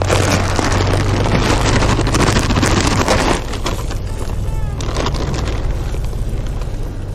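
Whole-kernel corn pouring out of an upended bag off the back of a moving pickup, a dense rushing rattle that eases after about three seconds, over the truck's low rumble and wind on the microphone.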